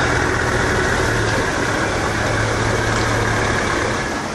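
Heavy diesel engine running steadily with a low hum, which eases off slightly about three and a half seconds in.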